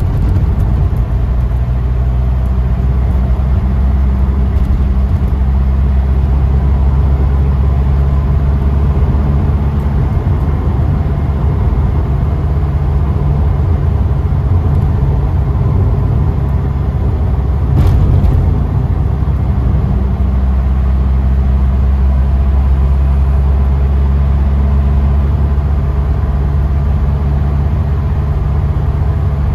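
Taxi engine and road rumble heard from inside the cabin while cruising, a steady low drone, with a brief knock about 18 seconds in.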